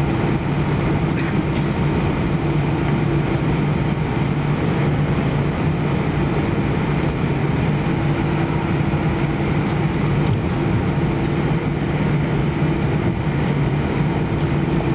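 Cabin noise aboard an Airbus A320-212 taxiing, its CFM56 turbofan engines at low taxi power: a steady hum with a low drone over an even rush of air.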